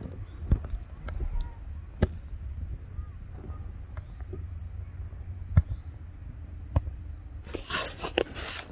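Steady high-pitched insect drone, with a few sharp knocks from the phone being handled and a burst of rustling near the end as it is swung down toward the grass.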